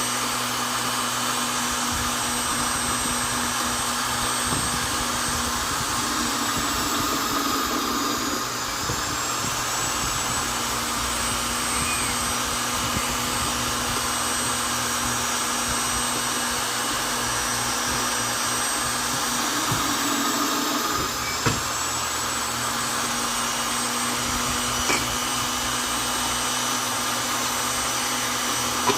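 Vonder electric drill running steadily, drilling into wood, with a constant motor whine. The whine sags in pitch briefly twice, about a third and two-thirds of the way through.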